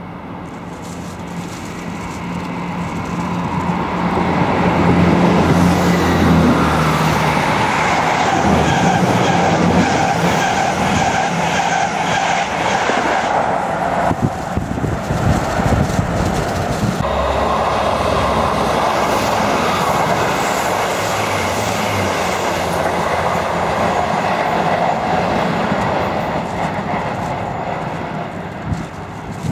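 A train running through the station: the rumble and rail noise build over the first few seconds, then stay loud for most of the time. About halfway the sound breaks off briefly and resumes, and it eases near the end.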